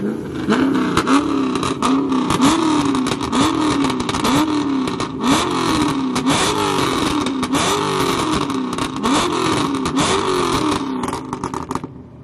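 C5 Corvette's V8 blipped over and over as it pulls away, the exhaust note rising and falling about twice a second, with sharp crackles in between. It drops away near the end.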